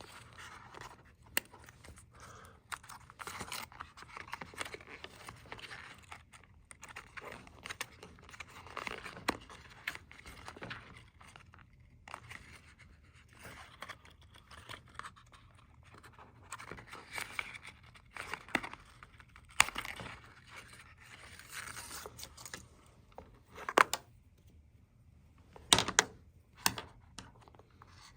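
Hands handling unboxing packaging and its contents: scraping and rustling of paper and card with scattered clicks and taps, and a few sharper knocks in the last third.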